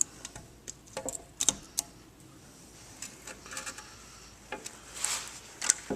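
Scattered light metallic clicks and clinks, with a short scrape about five seconds in, as the oil pan is worked loose and lifted off an automatic transmission case.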